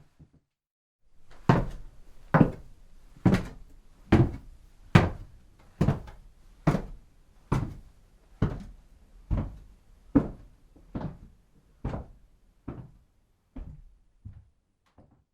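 Footsteps of a person walking at a steady, unhurried pace, about one heavy step every 0.85 seconds. They start about a second and a half in and grow gradually fainter toward the end.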